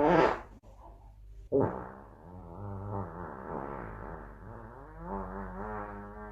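Long, drawn-out fart noises with a wavering, buzzing pitch. One loud burst cuts off about half a second in, and a new one starts sharply about a second and a half in and goes on, swelling and sagging.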